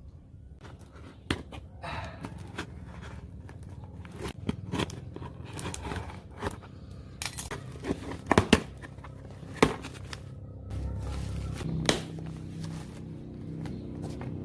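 Packaging being handled and opened by hand: irregular clicks, scrapes and rustles, with a few sharper snaps around the middle.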